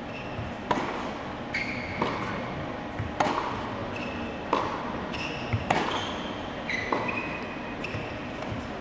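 Tennis rally on an indoor hard court: the ball cracking off racket strings and bouncing on the court, about eight sharp hits spread out with a short echo after each. Short high squeaks, typical of shoes on the hard court, come between the hits.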